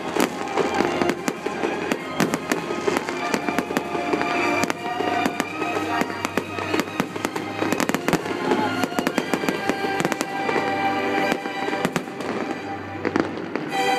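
Fireworks going off in quick, irregular succession, sharp bangs and crackles overlapping throughout, with music playing alongside.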